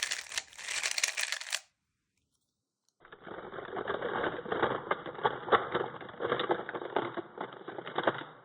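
3x3 speedcube being turned with finger tricks, its plastic layers giving a rapid rattle of clicks. The clicking stops about a second and a half in and starts again, sounding duller, about three seconds in.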